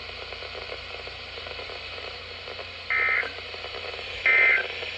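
NOAA Weather Radio SAME end-of-message data bursts: two short, buzzy digital tone squawks about a second and a half apart, starting about three seconds in, over faint radio hiss. They mark the close of the required weekly test message.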